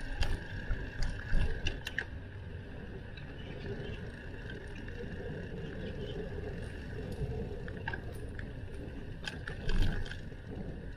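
A bicycle being ridden: a steady low rumble of tyres on the road, with a thin steady high tone over it. Sharp clicks and rattles from the bike come in clusters in the first two seconds and again near the end, the loudest knocks about a second and a half in and just before the end.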